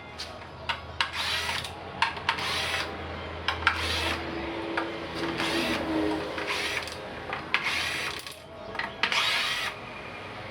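Hand-tool work on a Tacx Flux smart trainer: a series of short scraping strokes about once a second, with sharp clicks in between and a low hum through the first few seconds.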